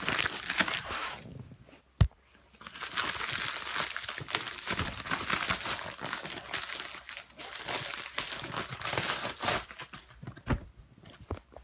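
Packaging being handled and unwrapped by hand: irregular crinkling and rustling of wrapping, with a brief lull and a sharp click about two seconds in and another sharp click near the end.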